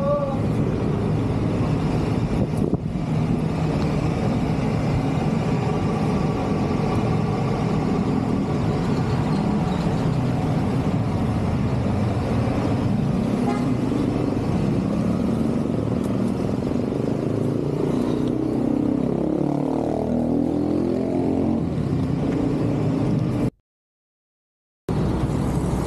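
Motorcycle engine running with road and wind noise on a helmet-mounted camera while riding. The engine pitch rises and falls a few times near the end. The sound then cuts out for about a second.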